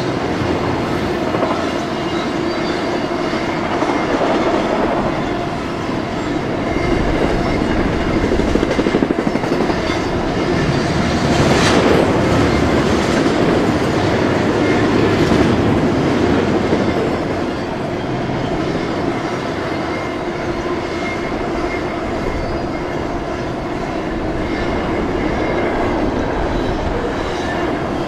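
Double-stack intermodal container cars of a Union Pacific freight train rolling past: a steady noise of steel wheels on rail, swelling somewhat in the middle, with one sharp clank about twelve seconds in.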